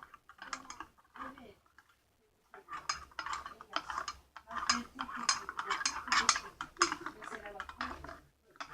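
A spoon stirring powdered detergent into hot water in a container, clinking and scraping rapidly against the sides, with a short pause about two seconds in.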